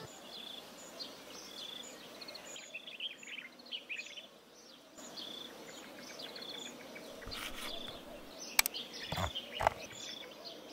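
Small birds chirping, a short high call repeating about once a second with a few quicker chirps in between, over a faint steady hiss. A few sharp clicks or taps come near the end, the loudest sounds here.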